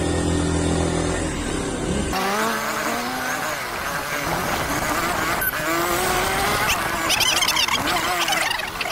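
Motorcycle engine running at a steady speed while riding, cutting off abruptly about two seconds in. A mix of wavering pitched sounds follows, getting louder and higher near the end.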